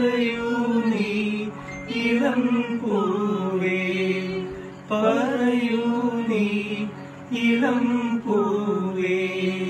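A voice singing long, wavering, held phrases of a Malayalam film song over a hand harmonium, whose held notes sound steadily underneath. The phrases swell in about every two to three seconds and tail off.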